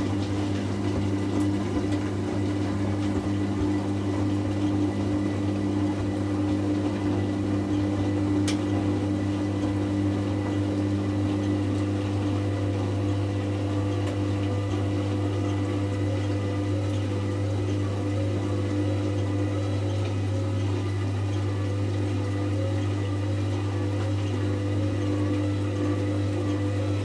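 Hoover Classica 1100 AC164 washing machine at the start of its 500 rpm sudslock spin, running with a steady low hum that holds one pitch throughout.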